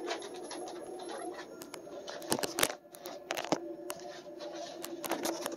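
Hub motor of a one-wheel self-balancing board, run by a VESC controller, humming steadily while the board is ridden, with scattered light clicks and knocks.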